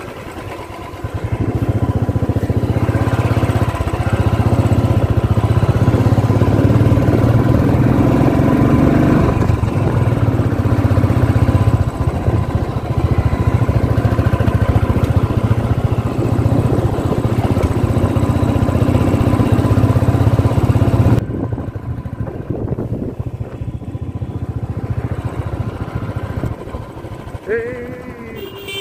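Motorbike engine running steadily on the move along a rough road, with road noise; about 21 seconds in the sound drops and becomes thinner.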